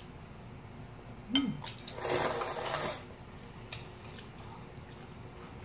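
A slurp of noodles lasting about a second, starting about two seconds in, with a few light clicks of chopsticks against bowls around it.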